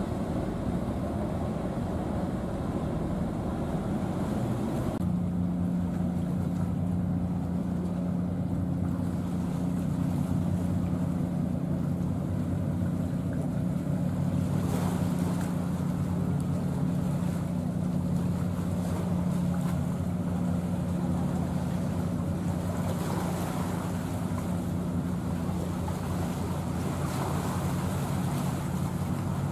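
Steady low drone of a boat's engine, coming in about five seconds in, over wind and water noise.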